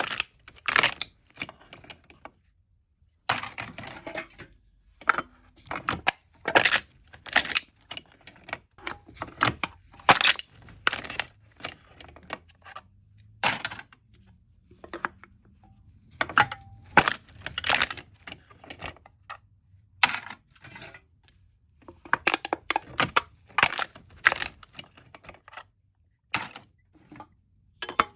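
Aluminium drink cans being crushed: irregular runs of sharp, crisp crackling and crinkling, with a couple of brief pauses.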